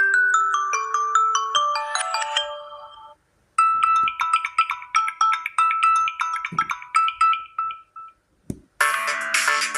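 Samsung Galaxy A01 Core ringtones played one after another. One melody ends about three seconds in. After a brief gap a second, lighter tune of quick notes plays and fades out. A third, fuller ringtone starts near the end.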